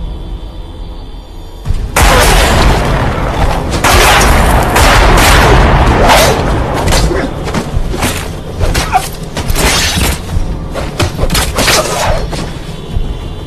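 A sudden loud explosion about two seconds in, followed by a long run of crashing, shattering impacts that thin out and die away, over a low rumbling background.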